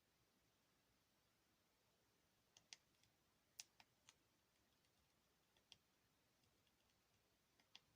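Near silence with about ten faint, sharp clicks, singly and in quick pairs, starting about two and a half seconds in: the keypad buttons of a Sony Ericsson K508i mobile phone being pressed.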